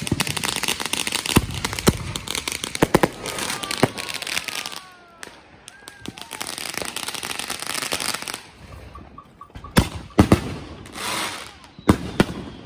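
Consumer fireworks: dense crackling and popping from a ground fountain on the street for the first few seconds, then several separate sharp bangs in the second half as an aerial firework bursts overhead.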